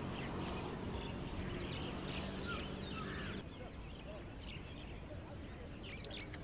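Crows cawing, with other short bird calls, over a steady low hum that stops about halfway through.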